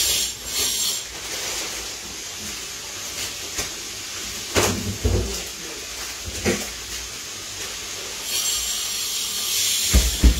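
Plastic bag crinkling and rustling as it is handled, in hissy bursts at the start and again near the end, with two dull knocks in between.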